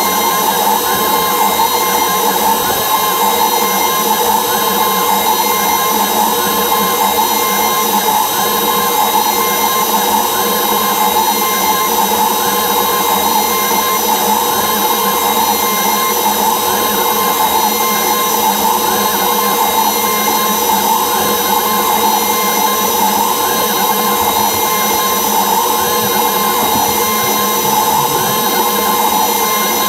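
CNC router spindle running with a steady whine while a fine tapered bit carves a relief into the board, with the sound of the cut rising and falling slightly as the bit moves.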